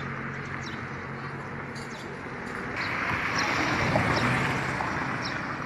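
A motor vehicle's engine running with road noise, swelling louder about three seconds in. Small birds chirp briefly several times over it.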